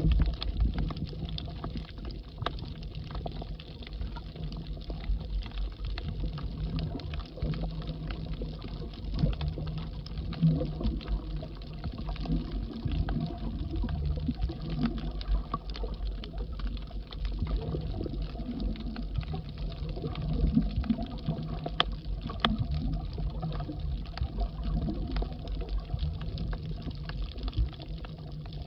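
Underwater sound picked up by a submerged camera: a steady, muffled low rumble of moving water with scattered faint clicks.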